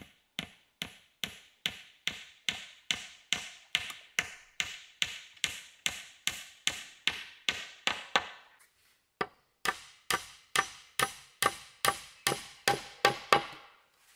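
A metal blade chopping into a wooden fence post with quick, even strokes, about two and a half a second. It stops for a moment just after the middle, then carries on with harder strokes.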